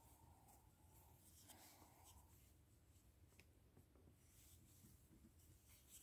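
Near silence with faint scratching and scattered light ticks of a wooden crochet hook pulling yarn through stitches.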